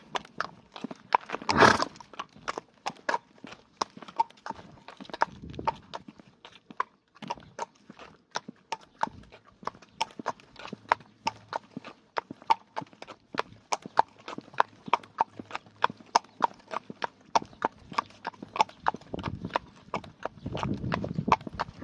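Horse walking with a steady clip-clop of hooves, about three a second. A loud, rough blowing sneeze comes near the start and another at the end, which the owner wonders might be hay fever.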